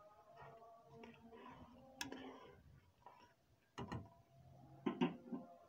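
A spoon knocking against the cooking pot as soup is stirred: a few sharp clicks, one about two seconds in, a quick pair near four seconds and two more near five seconds.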